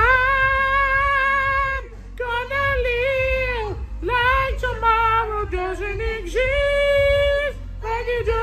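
A man singing unaccompanied into a close microphone in a high voice, holding long notes with short breaths between phrases.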